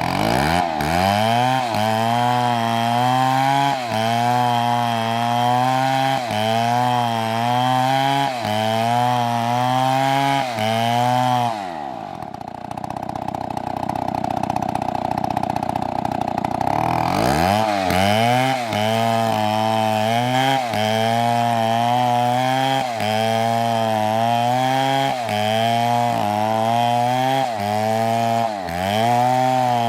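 Chainsaw cutting through wood, its engine pitch sagging and recovering over and over, roughly every second and a half, as it is worked through the cut. From about 12 to 17 s in it drops to a lower, steadier sound before cutting resumes.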